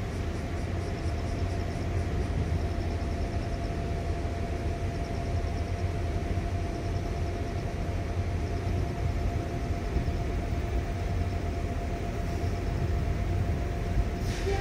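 Steady low machinery hum with a constant mid-pitched tone running through it, from the industrial plant beside the railway; no train is running.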